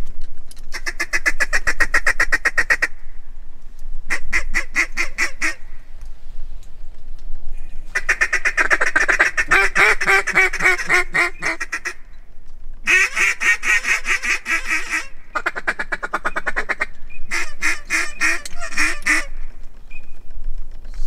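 Ducks calling in about six bursts of rapid quacks and chatter, each burst one to four seconds long, with short pauses between.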